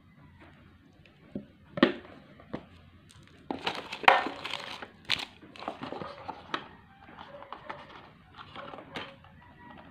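Close handling noises: a string of crinkling rustles and sharp clicks, loudest about two, four and five seconds in.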